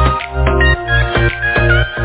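Background music: an electronic track with a heavy, pulsing bass and melody notes.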